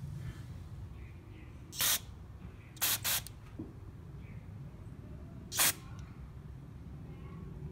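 Aerosol carburetor cleaner hissing out through its red extension straw in four short blasts, the middle two close together, flushing the partially clogged jet of a Briggs & Stratton 140cc carburetor.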